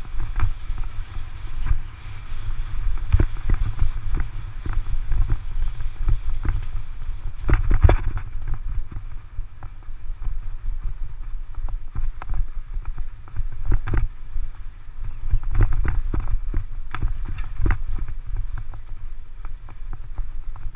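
Wind rumbling on the microphone of a bicycle-borne camera riding over a rough dirt road, with a steady run of irregular knocks and rattles as the bike and camera jolt over the bumps.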